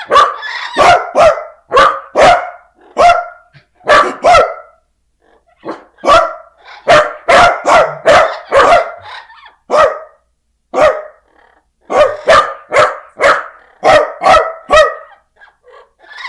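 Loud, rapid barking: sharp single barks in quick runs, with brief pauses about five and ten seconds in.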